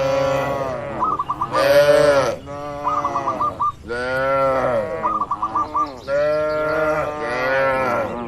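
Cattle mooing: several long, drawn-out calls in quick succession, some overlapping, with short high chirping notes between them.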